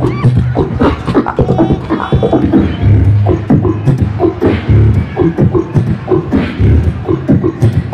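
Solo beatboxing through a handheld microphone and PA: a dense, driving rhythm of deep bass kicks and sharp click and snare sounds.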